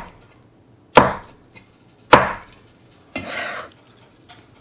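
Knife chopping through steamed chicken onto a cutting board: two sharp chops about a second apart, then a brief scrape just past the middle.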